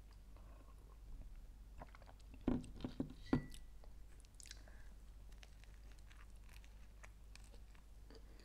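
Faint close-up eating sounds: a sip from a glass, then the glass set down with a few knocks and a short clink a little under halfway through, followed by quiet chewing and a bite into a toasted sandwich near the end.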